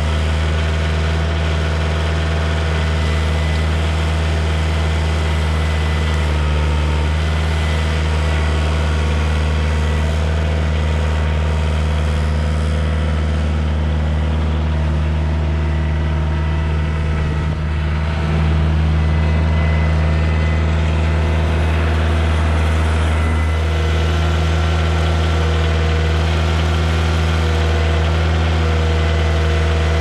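Compact tractor's diesel engine running steadily as its front loader and grapple carry a log. About two-thirds of the way through, the engine note shifts and grows a little louder.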